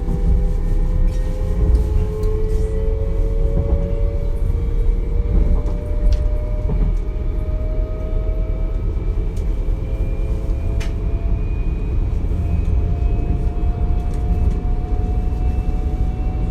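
DB Class 425 electric multiple unit's traction inverters whining inside the passenger car, several thin tones climbing slowly in pitch as the train gathers speed, over a steady rumble of wheels on rail with a few scattered clicks.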